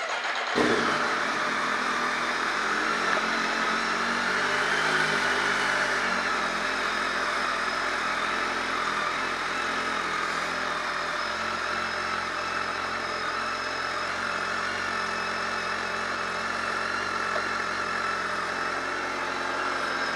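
Motorcycle engine, a BMW inline-four, catching suddenly and then idling steadily, its pitch settling over the first few seconds.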